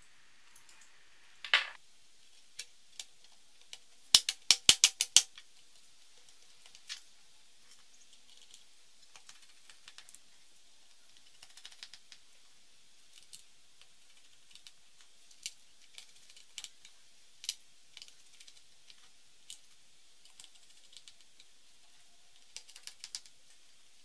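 Laptop base cover being seated onto the chassis and pressed along its edges, its retaining tabs snapping into place: a quick run of about six sharp clicks about four seconds in, then scattered lighter clicks. A brief scrape comes just before, about a second and a half in.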